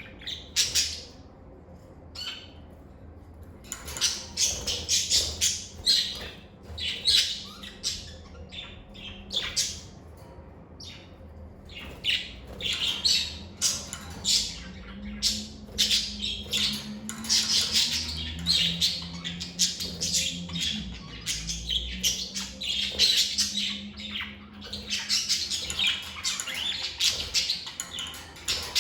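Pet lovebirds chirping and squawking in short, shrill calls, only a few in the first four seconds and then almost without a break.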